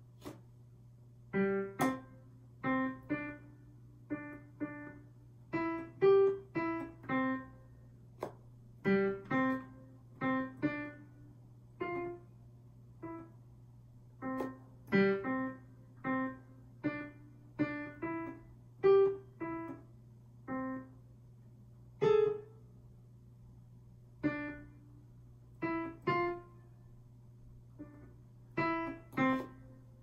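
Digital piano played slowly one note at a time: short, separate notes picking out a simple melody at an uneven pace, with pauses between phrases. A faint steady low hum runs underneath.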